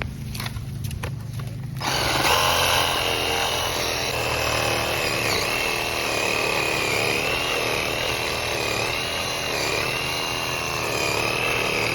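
RYOBI ONE+ 18V cordless reciprocating saw running and cutting. Its whine wavers in pitch as the blade takes load. It starts about two seconds in, after a few light knocks.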